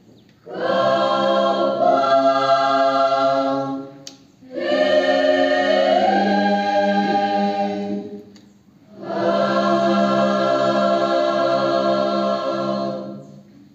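Mixed choir of women's and men's voices singing unaccompanied in harmony. Three long held phrases, each separated by a short breath pause, form the closing phrases of the song.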